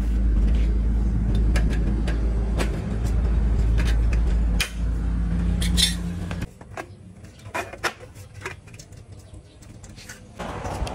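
A low, steady machine rumble that stops abruptly about six and a half seconds in, with scattered clicks and knocks throughout.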